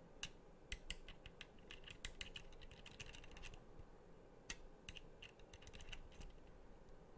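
Small, sharp plastic clicks and snaps from an Xbox Elite Series 2 controller's detachable magnetic thumbstick being pulled off and put back. They come in irregular clusters, a busy run first and then a shorter group after a pause.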